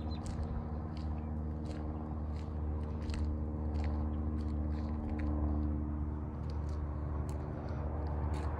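Steady low machine hum with an even, unchanging pitch, under scattered sharp clicks.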